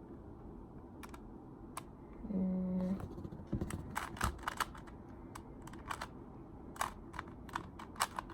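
Rubik's cube being turned by hand: sharp plastic clicks of the layers snapping round, a few lone ones at first, then quick runs of several a second from about three and a half seconds in. A short hummed 'mm' just over two seconds in.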